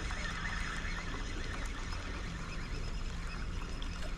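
Steady wind rumble on the microphone, with light, irregular ticks over a higher hiss.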